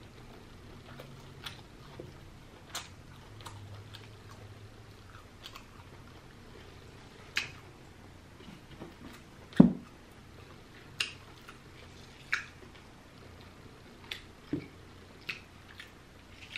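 Close-up mouth sounds of a person chewing soft deshelled seafood: scattered wet smacks and clicks. One louder low thump comes just under ten seconds in.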